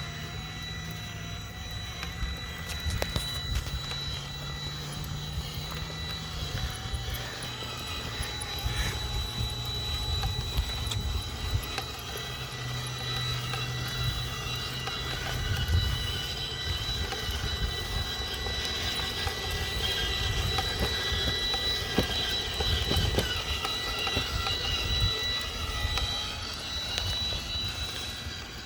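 Electric motor of an RC truck whining at one steady pitch, over wind rumbling on the microphone; the whine stops near the end.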